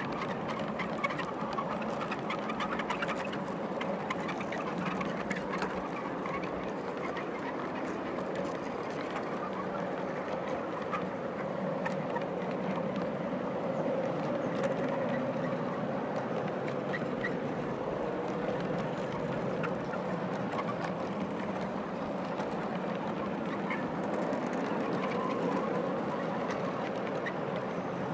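G scale model hopper cars rolling past on garden railway track: a steady rumble of wheels running on the rails, with a few light clicks.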